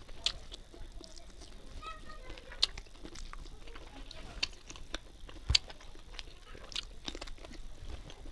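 Close-up chewing of a mouthful of rice and curry, with many short wet mouth clicks and smacks. A sharper knock stands out about five and a half seconds in.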